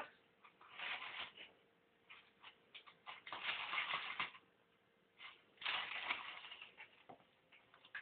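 African grey parrot rustling and crumpling newspaper cage lining, in three bursts of a second or so, with small clicks between them.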